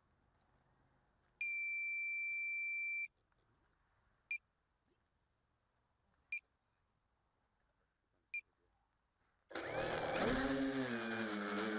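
A long electronic beep, then three short beeps about two seconds apart. Near the end the multirotor's electric motors and propellers start up: a loud whine that rises in pitch and then holds.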